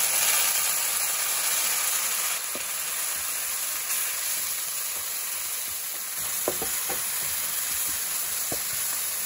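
Coriander paste sizzling as it fries in hot oil and ghee in a non-stick pan, a steady hiss that is loudest just after the paste goes in. A few light knocks come as it is stirred.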